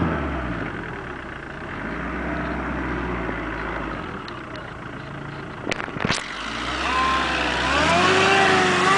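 Jeep Cherokee engine running under load off-road, its pitch rising and falling as it is revved. A couple of sharp knocks come about six seconds in, and the engine revs up louder near the end.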